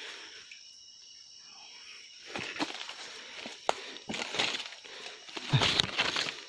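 Footsteps crunching and rustling through wet leaf litter, twigs and grass, in uneven steps starting about two seconds in, the loudest near the end. A steady high insect whine runs underneath.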